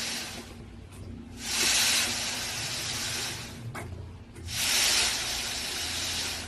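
Concrete pump running: a hissing rush comes about every three seconds, each lasting a second or more, over a steady low hum. The rhythm fits the pump's pumping strokes.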